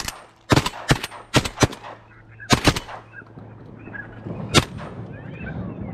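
Two shotguns firing at ducks in a fast volley, about seven sharp shots within roughly two and a half seconds, then one last shot about four and a half seconds in.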